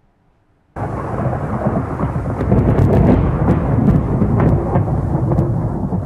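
Thunder sound effect: a heavy rolling rumble that starts suddenly about a second in, with sharp crackles over it.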